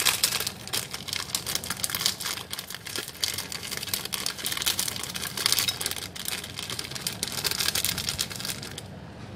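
Plastic Oreo cookie wrapper crinkling as hands squeeze and shake crushed cookies out of the packet: a dense, irregular crackle that dies down near the end.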